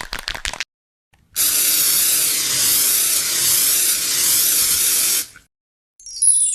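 A brief crackle, then a steady spraying hiss lasting about four seconds that cuts off. Near the end a falling run of bright, chime-like tones begins.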